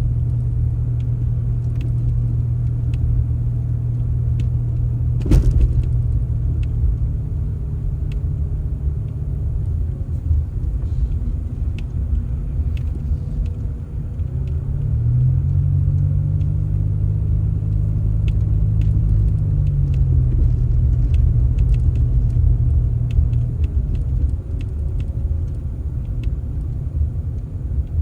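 A vehicle engine running steadily with a low hum. Its pitch rises for about five seconds past the middle, then drops back. A single sharp knock comes about five seconds in, and light clicks are scattered throughout.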